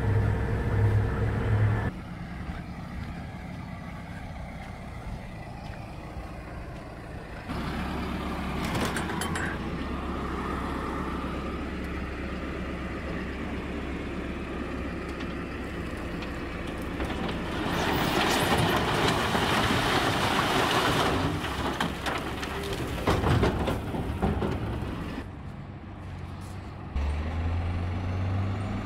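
Truck engine running and idling at changing speeds, with a louder rushing, hissing stretch about two-thirds of the way through.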